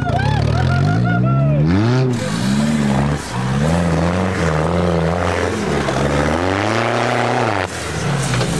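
Off-road trial vehicle's engine revving up and down again and again under load, with a loud rushing noise behind it from about two seconds in. Near the end the revs drop and settle to a steadier, lower note.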